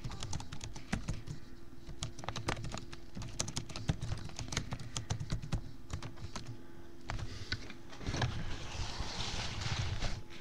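Typing on a laptop keyboard: irregular, quick key clicks, over a faint steady hum.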